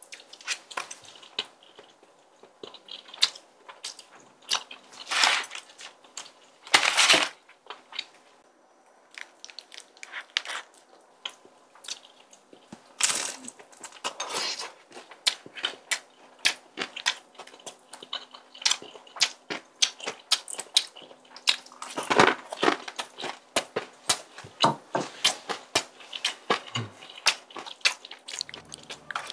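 Close-miked chewing and mouth sounds of someone eating spicy tteokbokki (chewy rice cakes and fish cakes): a steady stream of short smacks and clicks, with a few louder, longer sounds scattered through.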